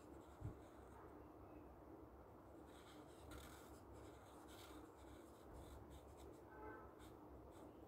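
Faint scratching of a black felt-tip marker drawing on paper, with a soft low bump about half a second in.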